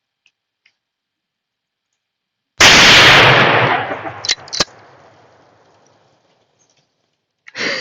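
An explosive charge in a cardboard box going off: one sudden, very loud blast about two and a half seconds in that dies away over about three seconds, with two sharp cracks as it fades.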